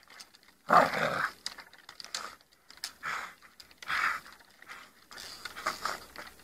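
Dog making about five short, rough vocal bursts, the first, about a second in, the loudest.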